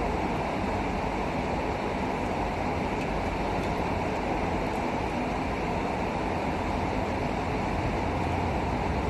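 Steady, even rushing noise, heaviest in the low and middle range, with no distinct clicks or knocks standing out.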